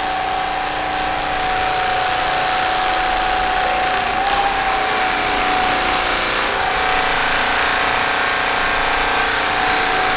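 Theragun PRO percussion massager running at its lowest speed, 1750 percussions per minute: a steady motor whine over the device's rapid percussive hammering.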